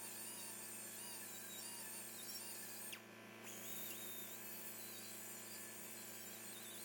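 Small rotary sander with a sanding disc running on a rusty steel frame brace, its high whine wobbling up and down in pitch as it bears on the metal, over a steady hum. The whine drops out briefly about three seconds in.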